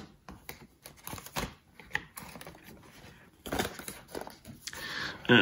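Thick cardboard board-game tiles being lifted and handled in a cardboard box, with light clicks and taps as they knock together and a louder scraping rustle near the end as they slide against each other.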